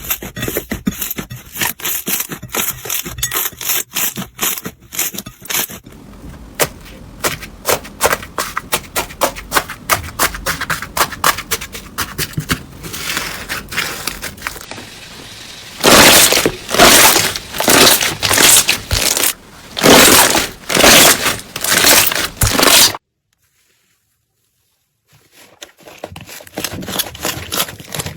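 Slime being squeezed and pressed by hand, making rapid crackling pops and squishes. A louder run of squelching comes about two-thirds of the way in, then a couple of seconds of dead silence at a cut before the crackling resumes.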